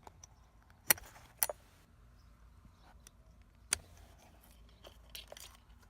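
Hand tools clinking and clicking as they are handled: two sharp metallic clicks about a second in, another a little before four seconds, and a short cluster of lighter rattles near the end.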